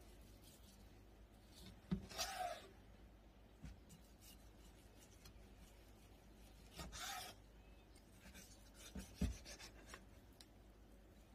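Kitchen knife slicing a raw sea bream fillet on a wooden cutting board. Two brief strokes of the blade drawing through the flesh come about two and seven seconds in, with a few light knocks of the knife on the board.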